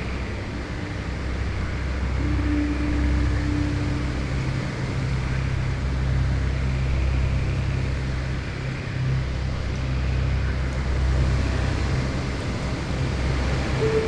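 Steady rain with strong wind, a deep low rumble under an even hiss of rain, with a few held low tones sounding faintly underneath.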